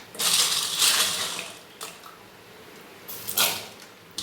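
Water running in two short bursts of splashing, with a light clink of dishes between them.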